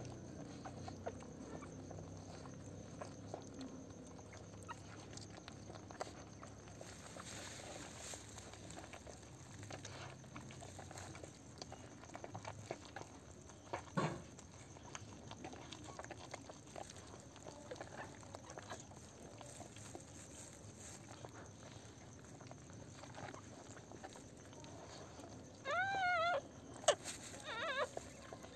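Newborn Pomeranian puppy giving a couple of short, high-pitched squeaking cries near the end, over faint scratchy rustling in the whelping cage, with one sharp tap about halfway.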